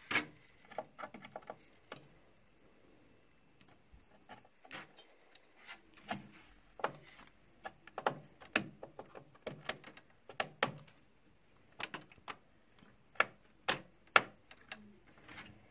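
Irregular sharp clicks and taps of a G.Skill RAM module being handled and pressed into a motherboard memory slot, about a dozen and a half over the stretch.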